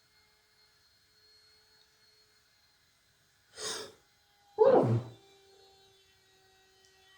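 A person sneezing: a softer breathy burst about halfway through, then a loud sneeze about a second later that trails off.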